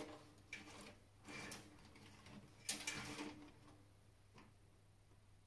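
Faint clicks, taps and rustles of hands handling parts and cables inside a desktop PC case, four or five short sounds about a second apart, fading out near the end.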